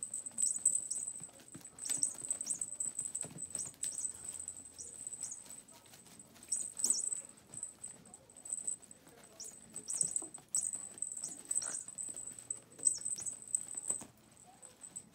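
Yorkshire terrier puppies' paws scrabbling and pattering on puppy training pads as they chase and pounce on a string toy: irregular quick scuffs and small clicks in bursts. A thin high-pitched tone comes and goes throughout.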